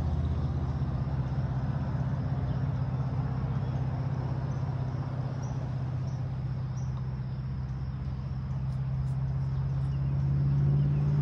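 A steady engine-like hum, rising a little in pitch and loudness near the end.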